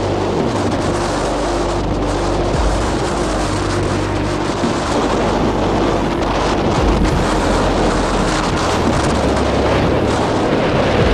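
Wind buffeting the microphone and the sea rushing past the hull of a sailboat under way in a fresh breeze, a steady noise with a low steady hum underneath in roughly the first half.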